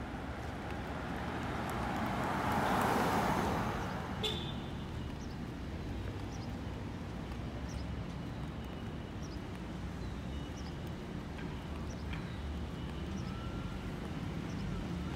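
Street ambience: a steady low traffic rumble, with a car passing about two to four seconds in, its sound rising and then fading, and a single sharp click just after.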